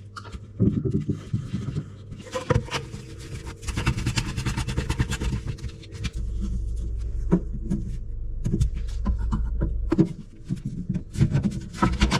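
Tool work on plumbing: repeated scraping with sharp clicks and knocks. A steady low hum from a small motor joins about six seconds in and stops about four seconds later.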